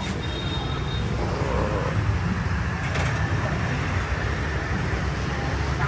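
Steady low rumble of motorbike traffic and engines on a street, with a short faint high tone near the start and a single click about three seconds in.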